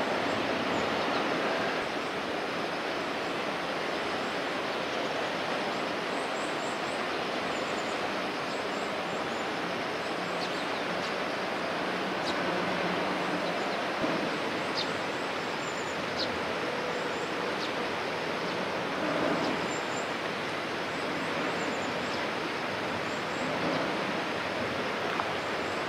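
Steady outdoor waterfront ambience: a continuous rushing noise of water and wind, with faint high chirps now and then.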